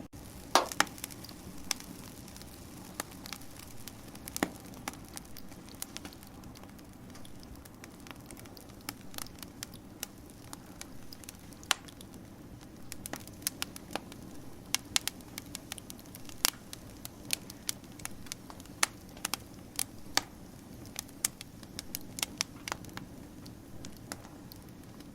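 Wood fire crackling: irregular sharp pops and snaps over a steady low hiss, with a couple of louder pops just after the start.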